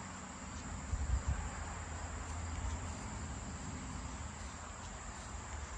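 Crickets chirring steadily: a continuous high-pitched trill, with a faint low rumble underneath.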